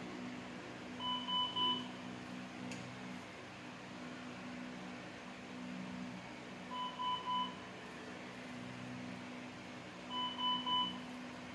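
Hospital monitor alarm sounding three short beeps at a time, three times, over a steady low hum of equipment.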